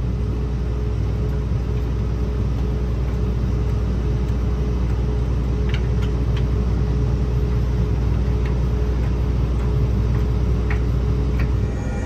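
John Deere tractor engine idling steadily, a low rumble with a steady hum over it. A few faint clicks come about six seconds in and again near the end.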